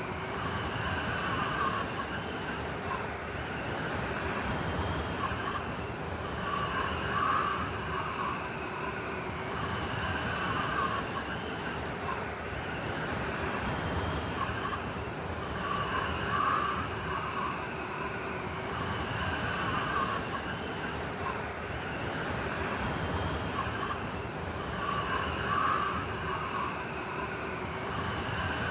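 Blizzard wind howling over a steady rush, with whistling tones that waver up and down and swell in gusts every few seconds.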